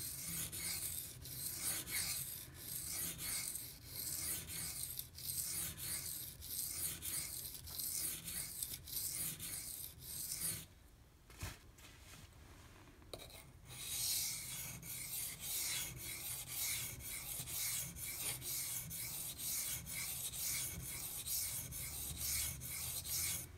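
A Benchmade Mini Griptilian's 154CM steel blade stroked back and forth across a 400-grit Pride Abrasives water stone, a gritty rasp about twice a second. The strokes pause for about three seconds near the middle, then resume.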